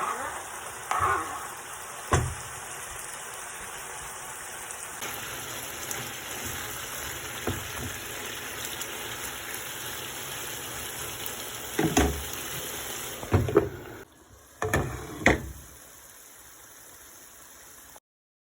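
Food sizzling in a frying pan, a steady hiss broken by a few sharp knocks. The sound cuts off suddenly near the end.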